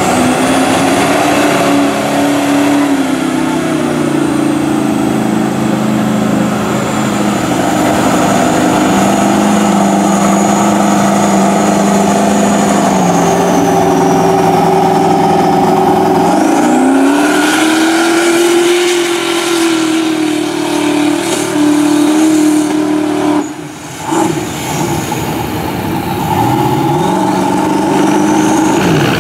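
Mud truck's engine revving under load as it churns through deep mud, its pitch climbing and falling several times with the throttle. There is a short dip in the sound about two-thirds of the way through.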